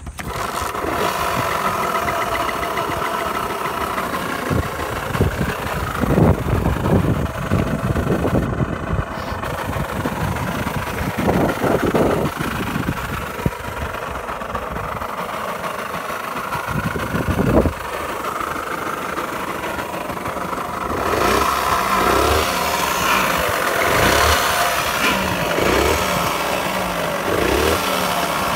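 Kawasaki KSR50's small two-stroke single-cylinder engine catching right at the start and then running, with several brief revs and a louder stretch near the end. It runs with an abnormal engine noise that the owner points out.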